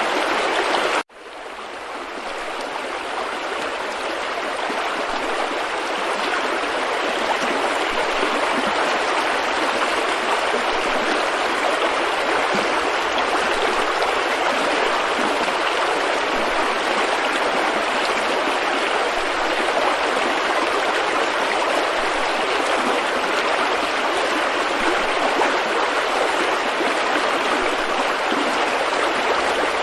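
River rapids rushing steadily, an even roar of fast-moving water. About a second in the sound cuts out abruptly, then fades back up over several seconds.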